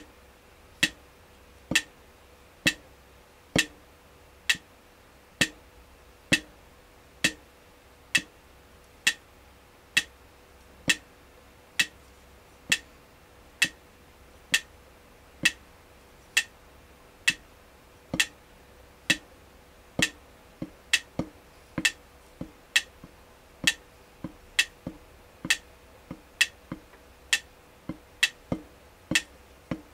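Drumstick striking a drum pad in steady single strokes, a little over one a second. From about two-thirds of the way through, softer strokes fall between the main ones.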